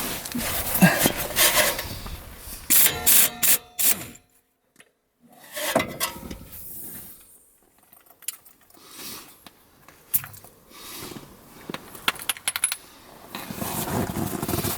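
Metal tools and small parts clinking and rattling with scattered sharp knocks, broken by a second of near silence about four seconds in.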